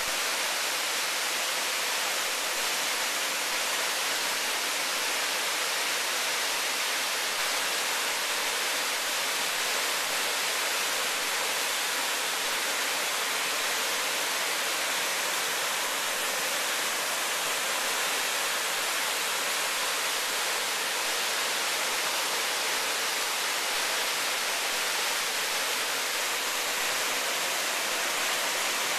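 Waterfall: a steady rush of falling water, an even hiss that sits mostly in the upper range with little low rumble and no change in level.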